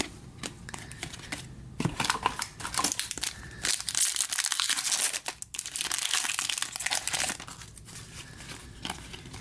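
Hockey card pack wrapper being torn open and crinkled, a dense crackling rustle that is loudest in the middle.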